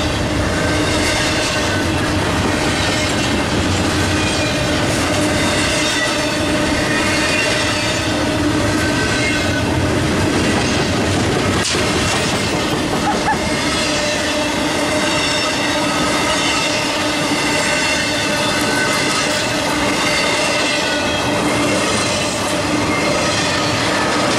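Freight train cars rolling past close by: intermodal container well cars and empty flatcars rumbling along the rails with occasional clicks over rail joints, and a steady squeal from the wheels.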